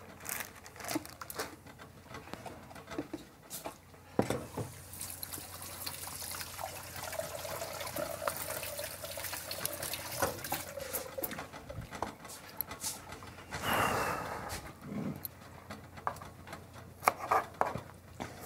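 Kitchen tap running into a sink for about ten seconds, with scattered clinks and knocks of dishes and utensils around it.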